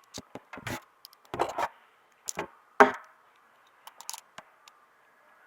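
A string of irregular clicks and knocks, about a dozen, with the loudest knock a little under three seconds in.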